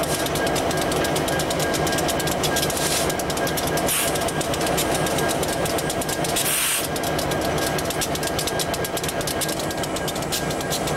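Diesel freight locomotives running close by: a steady engine rumble with a hum. A few short hisses of air cut through it, the longest and loudest a little past the middle.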